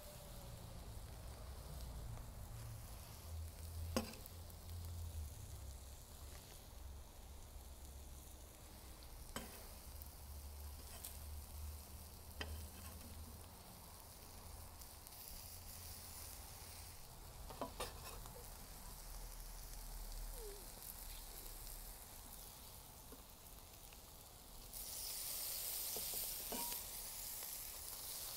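Birria beef and corn tortillas sizzling steadily on a hot Cuisinart 360 XL flat-top griddle, with a few sharp taps of a metal spatula on the steel. The sizzle grows louder near the end.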